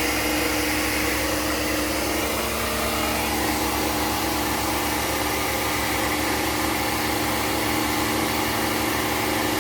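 Pressure washer running steadily: a constant motor-and-pump hum with a fast, even pulsing in the bass, under the loud hiss of its water jet.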